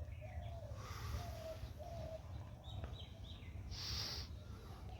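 Birds calling in the open: several short low notes in the first two seconds, then three quick higher chirps about three seconds in, over a steady low rumble, with a brief hiss about four seconds in.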